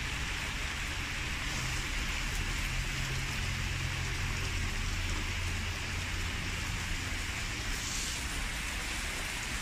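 Steady heavy rain falling on a wet street and pavement, an even hiss with a low rumble underneath.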